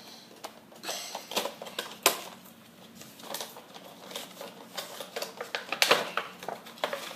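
Cardboard box and plastic insert being opened by hand to take out a vinyl figure: irregular crinkling, rustling and clicks, with a sharp snap about two seconds in and a louder cluster near the end.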